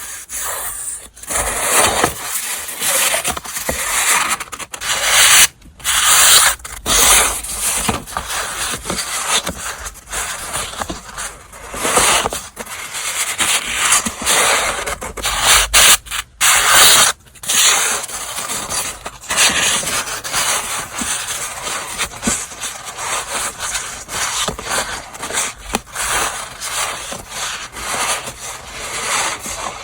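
Stationery gift packaging being handled and unwrapped: continuous rustling and crinkling, broken by a few brief pauses.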